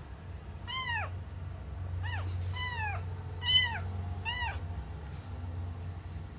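Kitten meowing repeatedly: about five short, high meows, each rising then falling in pitch, the fourth the loudest.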